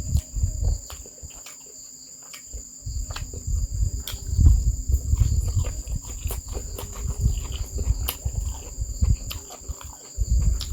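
A person chewing and eating close to the microphone: irregular low mouth sounds with many small clicks. Behind it runs a steady high-pitched drone.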